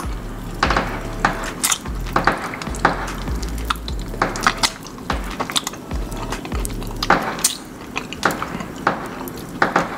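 Close-miked eating sounds: wet chewing and lip-smacking of soft durian flesh, with many short, irregular clicks.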